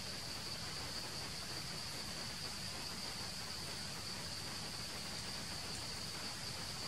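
Steady high-pitched drone of an insect chorus, one unbroken even band of sound, over a faint hiss of forest background.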